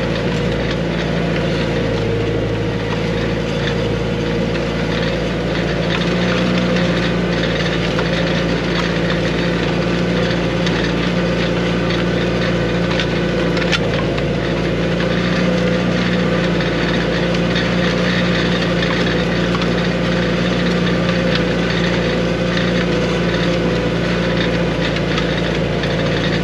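Arbos 3055 tractor engine running steadily under load, pulling a disc harrow through wet ground, heard from inside the cab.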